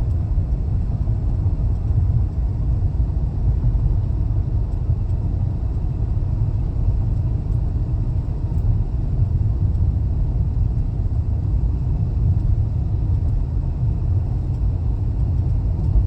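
Steady low rumble of a vehicle driving along the road.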